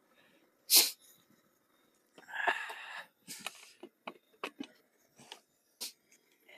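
Cooking gear being handled: a sharp clack about a second in, a short rustle, then a string of light knocks and clicks.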